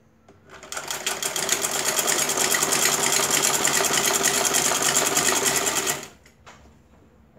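Old black sewing machine stitching a seam, a fast, even run of needle strokes that picks up speed about half a second in and stops abruptly about a second before the end, followed by a faint click.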